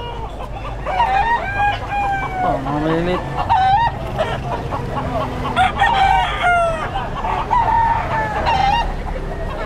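Several roosters crowing over one another, their calls overlapping, with chickens clucking in between.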